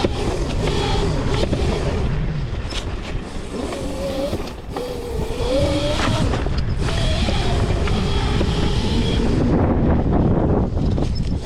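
Modified Razor MX650 electric dirt bike being ridden, its 11,000-watt brushless motor whining and rising and falling in pitch with the throttle, over a heavy low rumble of wind and dirt.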